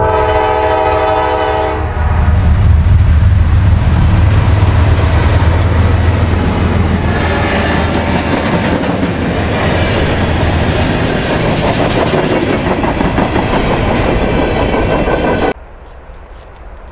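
GE C40-9W diesel locomotive's horn sounds for about the first two seconds as the freight train approaches. Then the locomotive's engine runs loudly past, followed by covered hopper cars rolling by on the rails. The sound cuts off suddenly near the end to a much quieter background.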